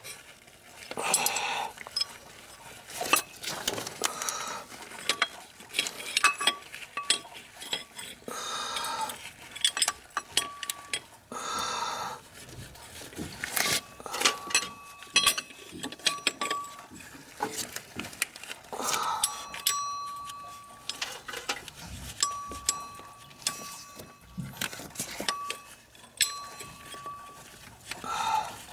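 Metal clinks and clicks of tools and bolts during hand work on an engine's water pump pulley, with rustling of gloved hands. A thin steady high tone comes and goes in the second half.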